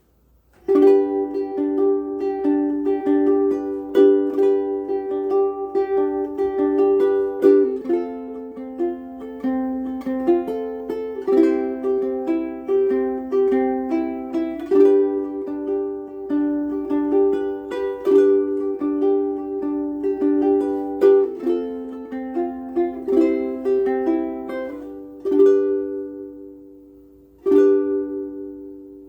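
Ko'olau C200 ukulele with aNueNue Green Planet strings played solo: plucked notes and strummed chords of a tune, starting about a second in, with a brief pause near the end before a few more chords.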